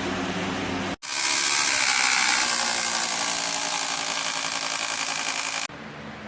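Electric box fan running: a steady motor hum. About a second in it cuts abruptly to a much louder rush of air with a whine, which cuts back to a quieter hum near the end.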